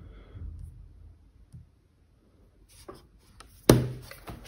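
Rustling and handling around a laptop, then a quiet stretch, then a run of light clicks with one loud sharp click a little before the end.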